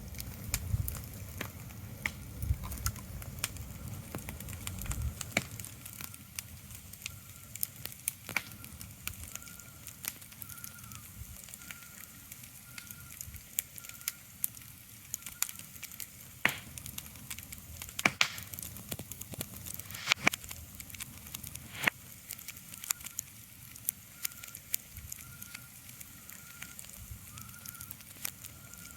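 Irregular sharp crackles and pops over a soft hiss, with a low rumble that dies away about five seconds in. A faint high tone repeats in short dashes later on.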